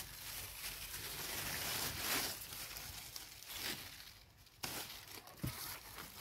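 Cucumber leaves and vines rustling and crinkling as a hand pushes through them, with a sharp click a little past halfway and a soft low thump shortly after.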